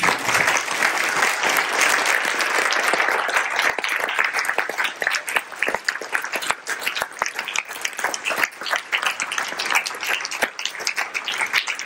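Audience applauding, dense at first and thinning out to scattered claps over the last several seconds.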